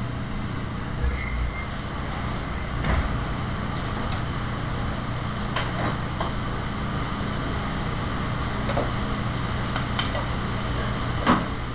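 Steady hum and rush of a commercial kitchen range and its exhaust hood running, with a few sharp clanks of pans and utensils. The loudest clank comes near the end.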